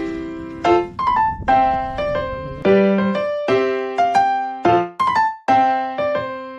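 Background music: a piano or electric piano melody, a few notes a second, each struck note fading away.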